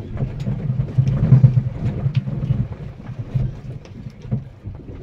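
Wind buffeting the microphone on an open boat at sea: a loud low rumble, strongest in the first half, with scattered small clicks.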